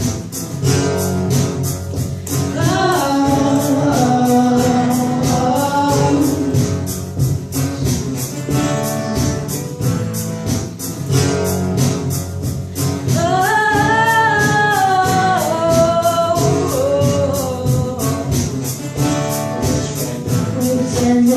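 Small live band performing a pop song: a singer holding long, bending notes over instrumental backing with a steady beat.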